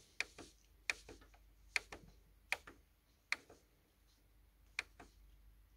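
Plastic navigation key on a Samsung Xpress M2675F laser printer's control panel clicking under repeated presses while scrolling through its service menu: about six short, sharp clicks, one every second or less, with a longer pause near the end.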